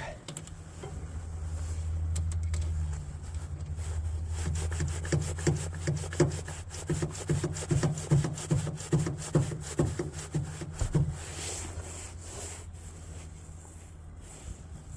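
Hand-pumped hydraulic crimping tool being worked to crimp a lug onto jumper cable: repeated pump strokes about twice a second for several seconds, stopping near the end, over a low steady hum.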